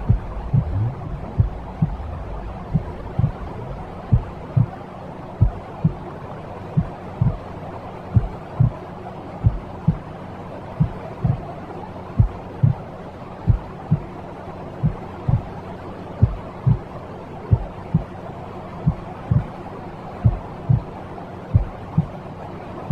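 Slow heartbeat sound, a double thump repeating about every one and a half seconds, over a steady hiss of white noise, a womb-like mix for calming a baby.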